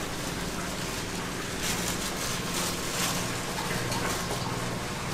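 Street food market ambience: a steady hum and background noise, with a few brief clicks or clatters near the middle.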